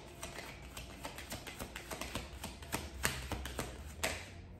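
Tarot cards being shuffled in the hands: a run of light, irregular card clicks and flicks, with a brief swish about four seconds in.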